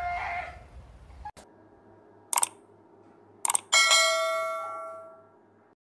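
Subscribe-button animation sound effects: two short clicks, then a notification bell chime that rings out and fades over about two seconds. Before this, a brief pitched cry from the previous dog clip is cut off about a second in.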